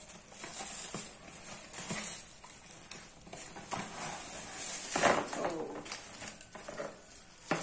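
Plastic wrapping crinkling and a cardboard box rustling as a ring light is pulled out of its box by hand, with a louder crackle about five seconds in.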